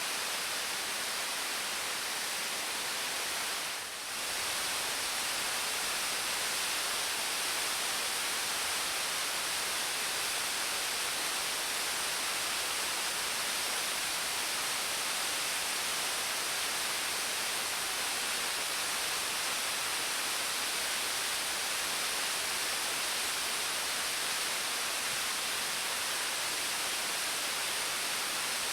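Steady rushing hiss of a partially frozen waterfall, with a brief dip in level about four seconds in.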